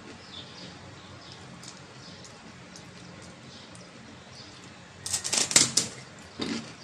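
Crisp fried fuchka (pani puri) shell crunching: a loud cluster of sharp crackly snaps about five seconds in, then a second, shorter crunch a moment later. Before that only a faint low background with small high chirps.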